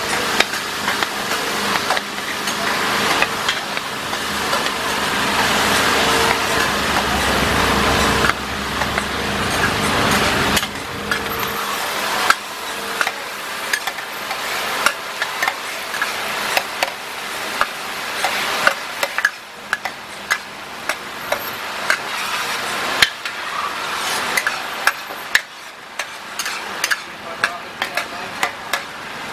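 Oil sizzling in a huge wok while a metal spatula and ladle stir and scrape through a frying paste, the tools clinking sharply against the wok many times, more distinctly in the second half. A steady hum sits underneath for the first third.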